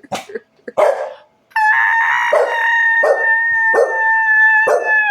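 A woman sings a long, steady high note, held for about three and a half seconds, while a dog barks along with it four times. Two short barks come in the first second, before the note starts.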